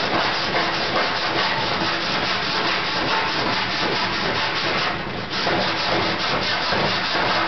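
Body file being stroked repeatedly across a sheet-metal car body panel in quick scraping strokes. This is metal finishing after hammer-and-dolly work, to show up any remaining high and low spots. There is a brief pause about five seconds in.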